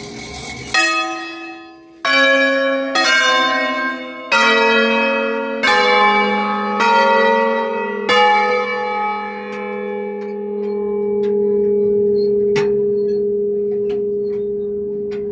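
A ring of five bronze church bells in A-flat (Giorgio Pruneri, 1907) heard at close range from inside the bell chamber, struck one at a time: seven strokes on bells of different pitch, about a second apart. After about eight seconds the strokes stop and the lowest bell's deep hum rings on, slowly fading.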